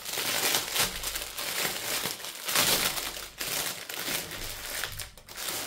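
Small plastic bags of diamond-painting drills being handled and sorted, crinkling and rustling irregularly, with brief lulls twice.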